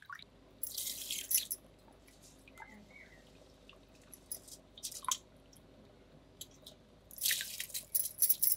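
Handfuls of water-soaked rice dropped into a pot of wet gravy, with wet squelching and splashing about a second in and again near the end, and drops of water falling between them.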